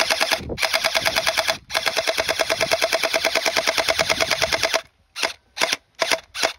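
Glock-style gel blaster firing gel balls in rapid strings of sharp shots, about ten a second, broken twice briefly. Near the end it slows to separate shots, about three a second.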